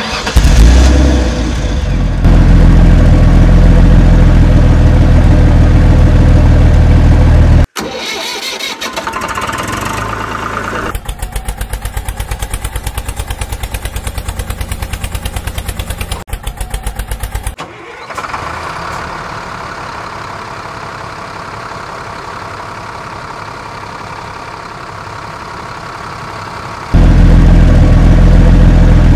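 A series of diesel-vehicle engine sounds that change abruptly every few seconds. It opens with a heavy engine starting and running steadily, then a fast, even chugging from about 11 to 17 seconds in, then a quieter steady engine, and the heavy engine returns loudly near the end.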